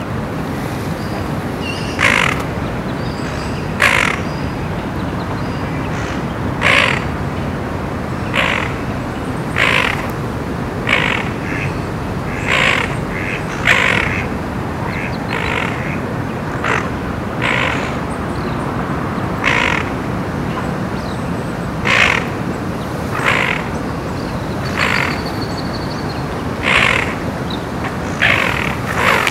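Harsh, short bird calls repeated every second or two, some in quick pairs, over a steady low background rumble.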